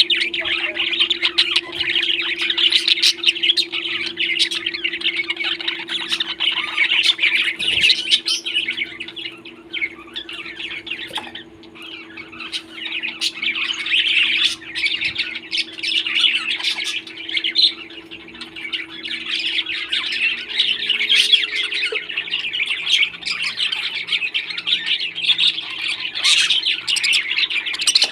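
Several parrots chirping and squawking in a dense, continuous chatter that eases off for a couple of seconds partway through, over a steady low hum.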